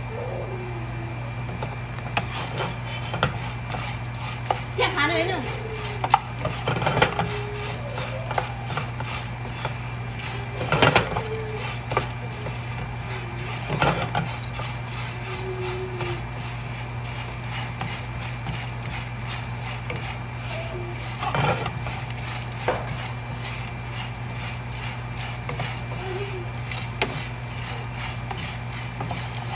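Dry pumpkin seeds rattling and rustling in a metal frying pan as a wooden spoon stirs them, with the spoon now and then scraping louder across the pan. A steady low hum runs underneath.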